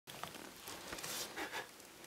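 Short rustles and scuffs, with a louder hissing rustle about a second in and two more just after.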